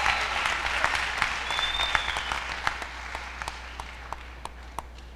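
Audience applauding, the clapping dying away over a few seconds to a few scattered claps.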